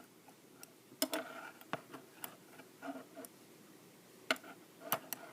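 Metal knitting needles clicking as stitches are bound off: a handful of sharp, irregular clicks with faint yarn rustling between them.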